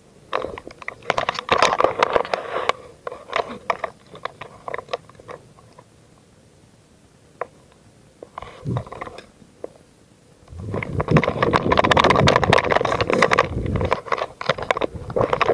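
Footsteps crunching and scraping over dry leaves and litter, with scattered clicks of gear being handled. About two-thirds of the way in, a loud, dense rustling that lasts a few seconds.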